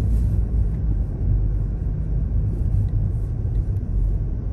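Steady low rumble of a car driving on a snow-cleared road, heard from inside the cabin.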